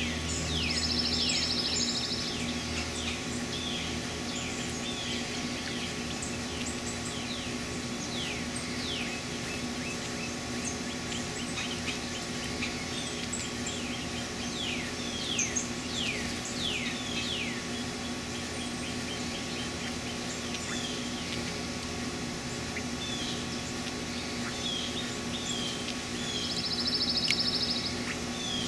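Songbirds calling all through: many short, high chip notes that sweep downward, with a rapid, evenly pulsed high trill about a second in and again near the end. A steady low hum runs underneath.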